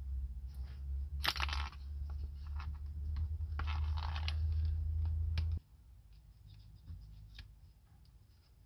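Thread being pulled through the stitching holes of a leather sheath: scratchy rustling pulls, loudest about a second in and again around three and a half to four seconds. A low steady hum underneath stops suddenly about five and a half seconds in, leaving only faint handling clicks.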